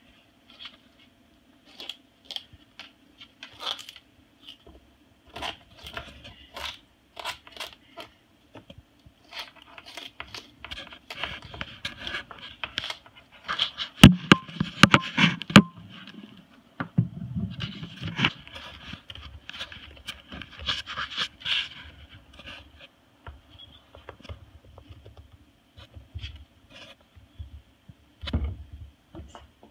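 Moluccan cockatoo chewing and shredding sugarcane with its beak: irregular crunching, scraping and cracking of the fibrous cane, with a run of louder crunches and knocks about halfway through.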